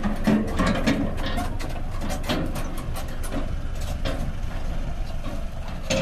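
John Deere 5204 tractor's diesel engine running as it tows a two-wheeled trailer over rough dirt, with the trailer clanking and rattling in many short knocks over the steady engine rumble.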